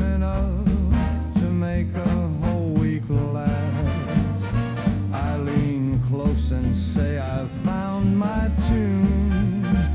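Swing-style dance song with a singer's voice over a steady beat and bass line.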